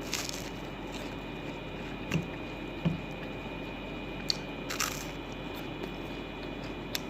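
A person eating close to the microphone: a few separate bites and chewing noises, with a couple of short crisp crunches a little past the middle.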